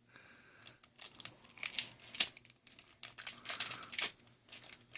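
Foil wrapper of a Pokémon card booster pack crinkling in irregular crackles as it is handled and the cards are pulled out, loudest about two and four seconds in.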